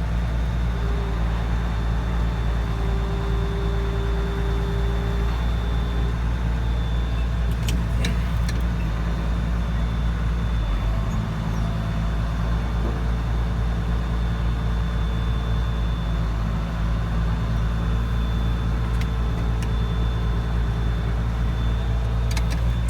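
Tractor engine running steadily, its note shifting slightly about eleven seconds in, with a faint whine coming and going over it and a few light clicks.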